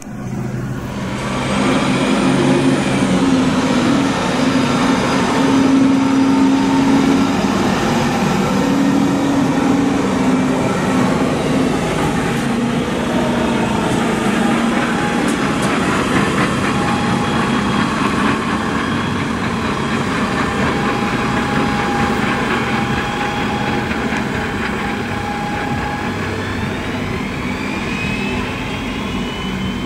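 Erfurter Bahn RegioShuttle (Stadler RS1) diesel railcar running past close by, its engine sound steady and loud. Near the end a whine rises in pitch.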